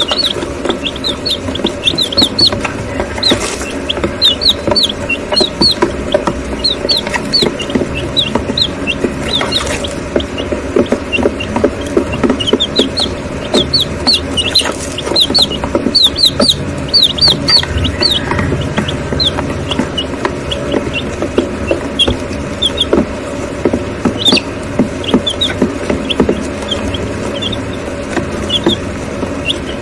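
One-week-old White Leghorn chicks peeping continually: many short, high chirps overlapping in quick succession, over a steady low hum.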